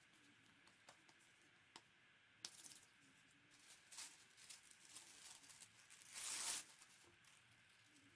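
Tissue paper being handled on a table: soft rustles and a few light taps, with one louder rip about six seconds in, lasting about half a second, as a strip of tissue paper is torn off.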